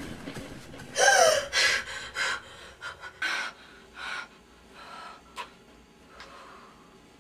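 A young woman's loud, voiced gasp about a second in, followed by several quick, audible breaths that grow fainter.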